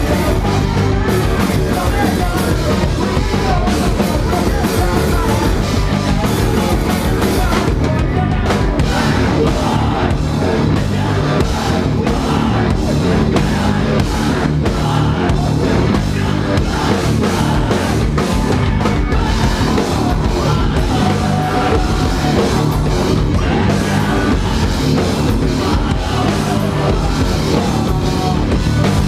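Rock band playing live and loud, a drum kit driving a dense, heavy full-band sound.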